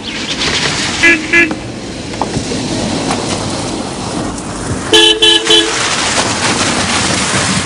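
Car horn tooting: two short toots about a second in, then three louder ones near five seconds. They sound over the steady noise of a Mercedes-Benz SL roadster driving into the yard.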